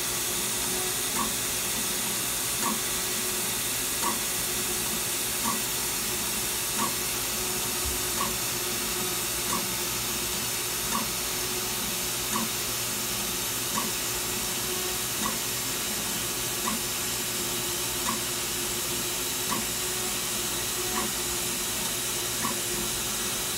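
2013 Datron M8 Cube CNC machine running with a steady hiss. A short chirp repeats about every one and a half seconds.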